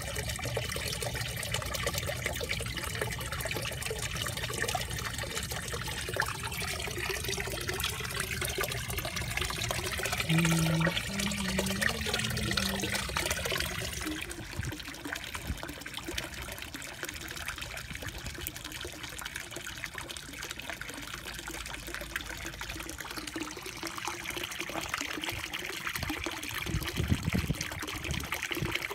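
Pond water trickling steadily into a koi pond, as a continuous running-water sound. A few brief low tones sound about ten to thirteen seconds in, and the water sound drops a little in level about fourteen seconds in.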